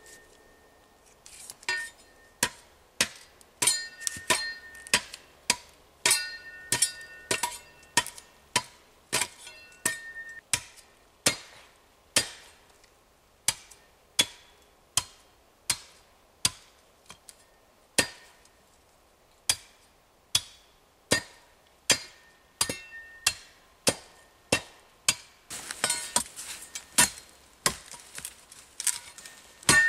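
Repeated chopping blows with the blade of a short-handled steel spade into wood, about one to two strikes a second. Some strikes carry a brief metallic ring.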